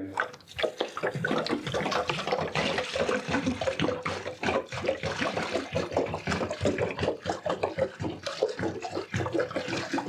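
Water pouring from a 10-litre plastic jerry can into the plastic tub of a small portable washing machine, splashing onto the clothes inside. The flow is uneven, with many short surges.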